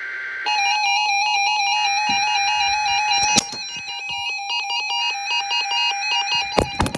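NOAA Weather Radio SAME data bursts: a harsh two-tone digital warble sent in bursts about two seconds long with one-second gaps, the coded header that starts the Required Weekly Test. From about half a second in, synth and guitar music plays over it, and a few sharp knocks sound just before the end.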